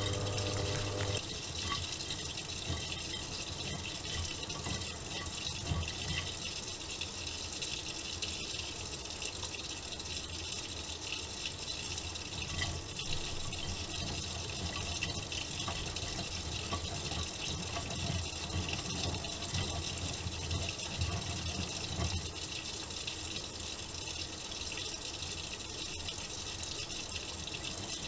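Miele Softtronic W3923 washing machine taking in water, a steady rushing hiss of water flowing into the drum. A low hum stops about a second in.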